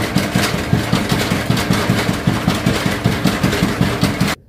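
Motorised stamping pounder (dank) with heavy pestle rods pounding roasted dried red chillies and spices in a trough, a fast, even run of thuds over the running machine. It cuts off suddenly near the end.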